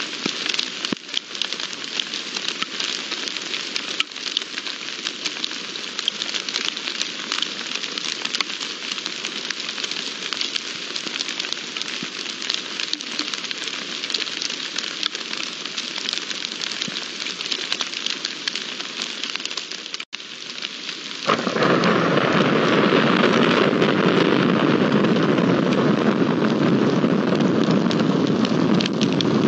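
Rain falling, with many sharp drop hits over a steady hiss. About 21 seconds in the sound jumps suddenly to a louder, denser and steadier downpour.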